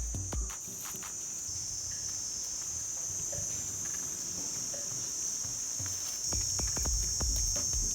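Steady high-pitched drone of a wild insect chorus, with scattered clicks and low thumps near the start and again from about six seconds in.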